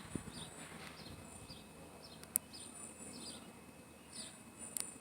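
Outdoor bird chirping, short falling notes repeated about twice a second, over a steady high insect buzz; two sharp clicks stand out, one about halfway through and one near the end.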